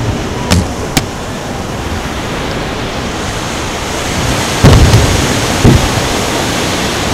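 Fireworks shells bursting: two sharp cracks about half a second apart near the start, then two heavy booms a second apart about four and a half seconds in, over a steady rushing background noise.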